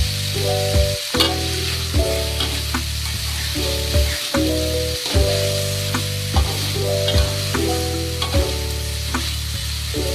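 Squid frying in a pan with a steady sizzle, stirred with irregular sharp scrapes and clicks of the spatula. Background music with held chords and a bass line plays over it.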